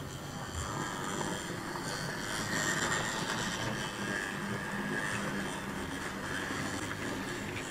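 OO gauge model steam locomotive and its milk tank wagons running along the track: a steady electric motor whirr with wheels rolling and rattling on the rails, growing louder as the train passes close by about three seconds in.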